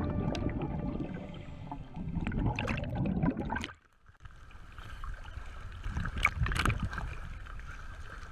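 Scuba exhaust bubbles rumbling and gurgling underwater, cutting off abruptly a little before halfway. Then choppy sea water splashing at the surface, with a couple of sharper splashes about two-thirds of the way in.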